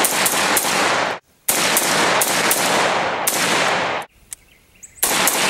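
Rapid semi-automatic fire from a 5.56 AR-15 rifle fitted with a TriDelta muzzle brake: strings of sharp shots about three a second, each ringing out with echo. The firing breaks off briefly about a second in and again for a second near the end.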